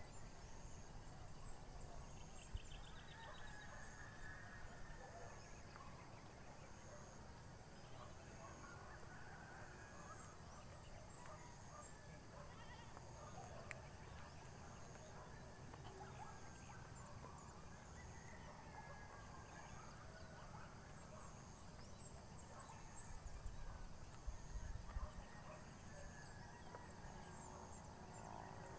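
Faint outdoor ambience: scattered distant animal and bird calls over a low rumble of wind on the microphone, which gusts louder a few seconds before the end.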